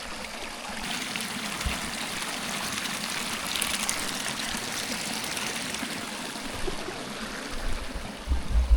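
Water flowing steadily in a stream, with a few low bumps near the end.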